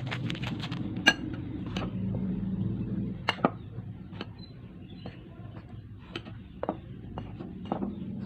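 Kitchen utensils clinking and knocking against cookware, a dozen or so scattered sharp clicks, loudest about a second in and just after three seconds, over a steady low hum.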